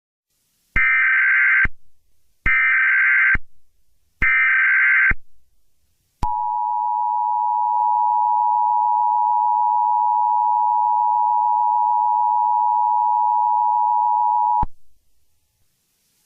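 Emergency Alert System tones: three data bursts of harsh warbling SAME header code, each about a second long, then the steady two-tone EAS attention signal held for about eight seconds before cutting off abruptly. They are the digital header and alert tone that open a new alert, here an emergency action termination.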